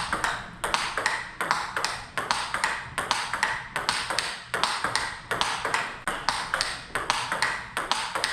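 Table tennis rally: the ball cracking off rubber-faced rackets and bouncing on the table in a quick, steady run of sharp clicks, several a second. The rackets carry a new rubber being tried out against another.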